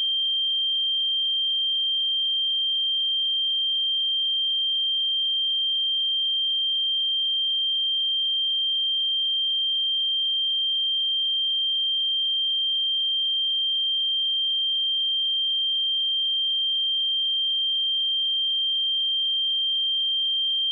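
A pure 3168 Hz sine-wave test tone held steady at constant level, a single high-pitched note with nothing else.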